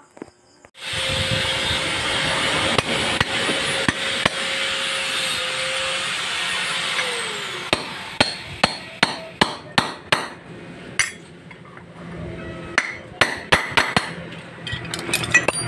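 A hammer strikes a steel drift to drive a needle bearing into the bore of a Honda Click 125 torque drive. The sharp metallic blows come quickly, two or three a second, in two runs through the second half with a short pause between them. Before the blows there is a steady mechanical hum with a held tone that drops in pitch.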